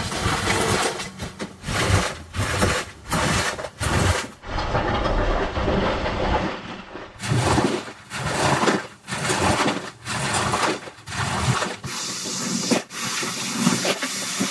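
Rubber squeegee dragged again and again through a water-soaked shaggy rug, forcing the rinse water out. It makes a wet scraping noise in repeated strokes, about one or two a second, with one longer stroke near the middle.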